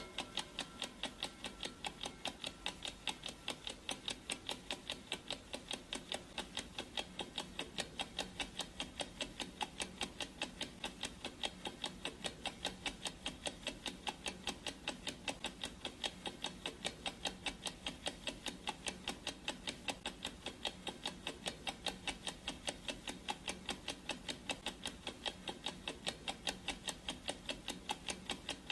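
Clock ticking sound effect of a countdown timer: a steady, even train of sharp ticks, several a second.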